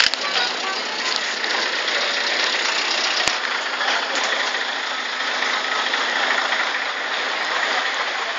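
Steady engine noise from idling buses and lorries standing in a traffic queue, with a sharp click about three seconds in.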